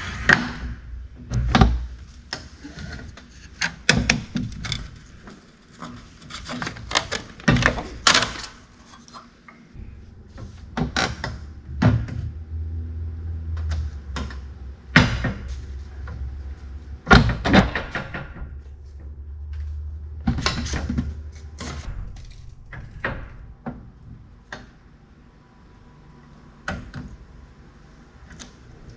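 Hand work with building materials: a string of knocks, clatters and thunks as pieces are handled and fitted, with a low steady hum for about ten seconds midway.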